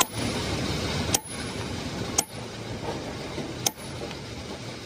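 Hammers striking the steel bearing sleeve on a jaw crusher shaft: sharp metal blows about a second apart, over a steady background hiss.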